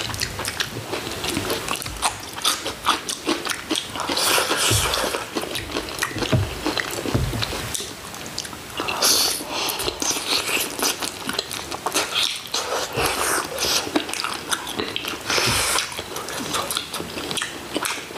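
Close-up eating sounds: a person biting and chewing food, with many short irregular clicks and wet mouth noises.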